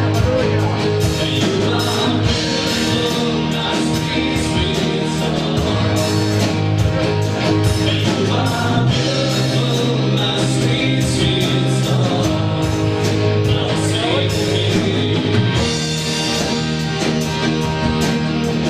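Live rock band playing a worship song: strummed acoustic guitar, electric guitar, keyboard and drum kit, with singing over the top.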